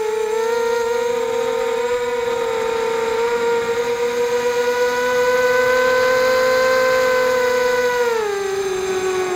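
FPV quadcopter's electric motors and propellers whining steadily, the pitch creeping up slightly, then dropping about eight seconds in as the throttle eases off.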